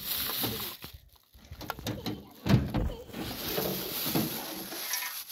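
Plastic bag crinkling and rustling as it is handled, with a thump about two and a half seconds in.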